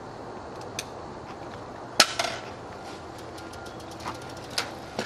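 Scattered sharp clicks and knocks from a rider fastening a helmet buckle and getting onto a road bicycle, the loudest about two seconds in, then lighter ticking as the bike rolls away over concrete.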